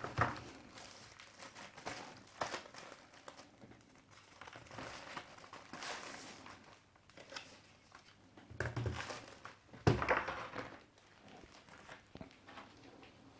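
Packaging of a tablet keyboard dock rustling and crinkling as it is unpacked from its box, with a few knocks. The loudest handling sounds come about nine and ten seconds in.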